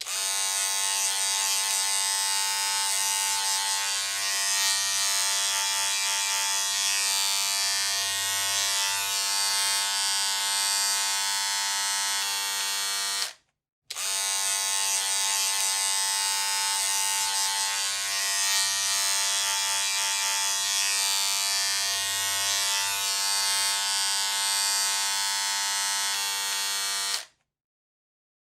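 Electric hair clippers running with a steady buzz. The sound stops for a moment about halfway through, then runs again until shortly before the end.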